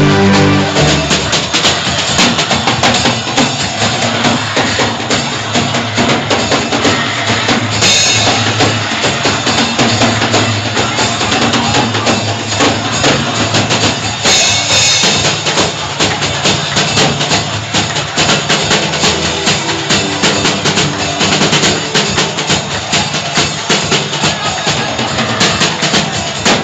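Music driven by a drum kit, with sustained bass notes underneath.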